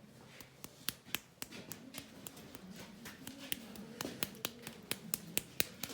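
An irregular series of sharp clicks and light taps, roughly two or three a second, from hands handling small hard objects. A faint murmur of voices lies underneath.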